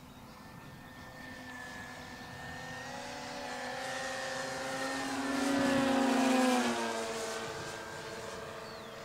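Two electric Flex Innovations RV8 model planes flying past together in formation: the whine of their motors and propellers grows louder to a peak about six seconds in, drops in pitch as they go by, then fades.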